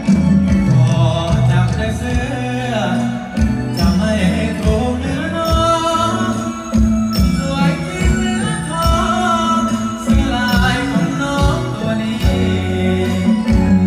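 Live band music with a steady beat and bass line.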